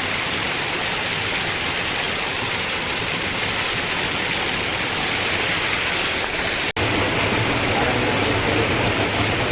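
Water of a small stream flowing steadily, a continuous broad hiss. The sound cuts out abruptly for an instant about seven seconds in.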